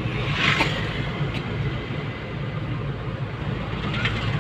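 Steady low rumble of a moving vehicle heard from inside the cabin, with a brief hiss about half a second in.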